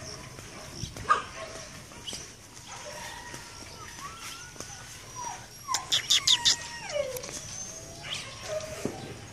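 Dogs whining and yelping, with a quick run of about five sharp barks a little past halfway and a falling whine after it.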